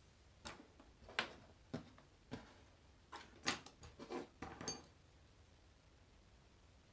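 Small hard makeup items such as a lash case being handled: a run of about a dozen light clicks and knocks over about four seconds, the last with a brief high ring.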